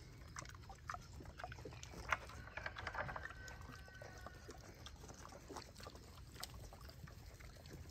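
Pot-bellied pigs rooting and eating in a dirt pen: soft snuffling with scattered small crunching clicks. A brief high tone sounds about three seconds in.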